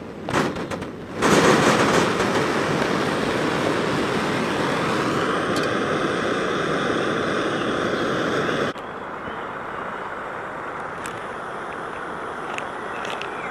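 Small canister-top backpacking stove on a butane/propane canister: a few clicks as it is lit, then the burner catches about a second in and runs with a steady rushing sound until it cuts off suddenly. A quieter background with a few light ticks follows.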